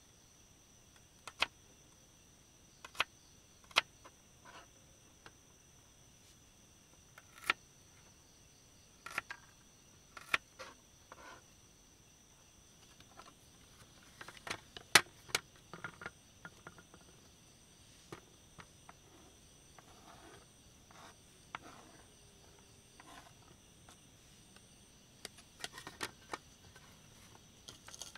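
Small kitchen knife cutting shallots on a plastic cutting board: single sharp knocks every second or so, coming in a quicker cluster about halfway through. Crickets chirr steadily in the background.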